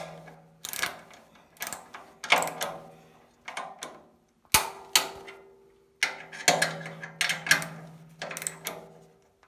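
Ratchet wrench on a socket and extension clicking in repeated short strokes as a steering-rack mounting bolt is run down.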